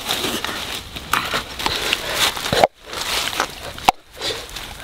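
Rustling and crackling of dry leaves and a wicker basket being handled, with many short clicks. The sound cuts out abruptly twice in the second half.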